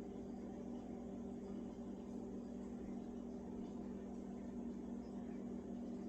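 A steady low electrical hum with no other events.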